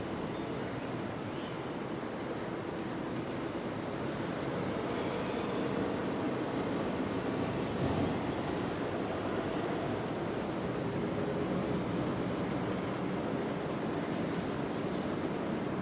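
Gusty wind making a steady rushing noise that swells slightly after a few seconds.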